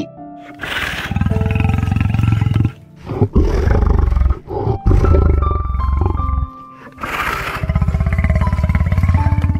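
A large animal giving four long, low, rasping roars, each lasting one to one and a half seconds, over background music with light melodic notes.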